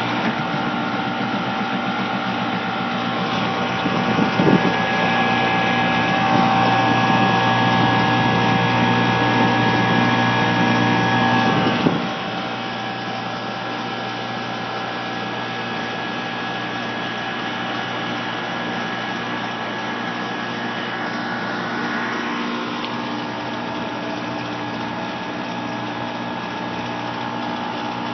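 Air-conditioning compressor running with a steady hum made of several held tones. It drops suddenly in level about twelve seconds in and runs on evenly. The owner says it sounds normal even though the system is not cooling.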